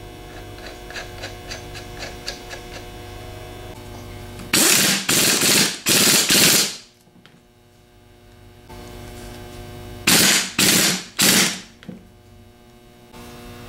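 Air impact wrench hammering the pulley nut tight on an alternator shaft, in short loud bursts: about four in quick succession, then after a few seconds' pause three more. A steady electrical hum runs underneath.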